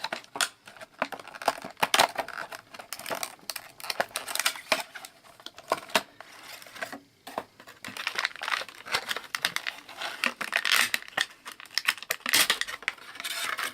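Plastic packaging crinkling and rustling, with irregular sharp clicks and taps, as a USB-C cable is unpacked and handled.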